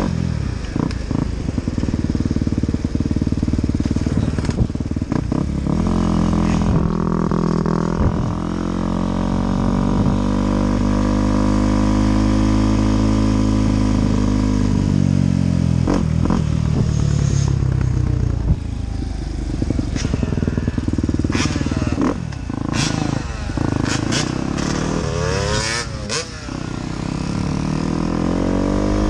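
Dirt bike engine heard from the rider's seat while riding, revving up and easing off so its pitch rises and falls several times, with scattered sharp clicks and knocks.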